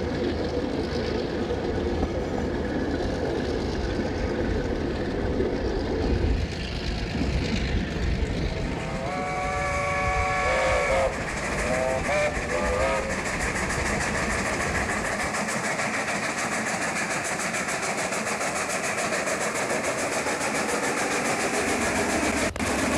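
Running noise and rail clatter of a locomotive-hauled passenger train heard from a carriage. About nine seconds in a locomotive warning signal sounds a chord of several notes for about two seconds, followed by two short toots.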